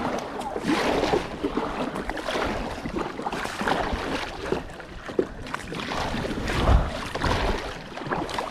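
Kayak paddle strokes splashing in moving river water, over a steady rush of water and wind on the microphone, with a heavy low thump about seven seconds in.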